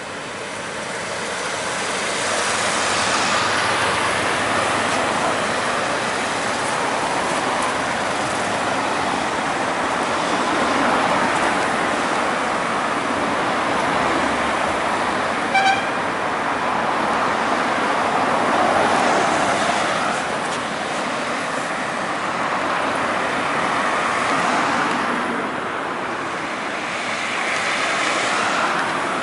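Street traffic, with cars passing one after another in swells of tyre and engine noise. About halfway through a car horn gives one short, high toot.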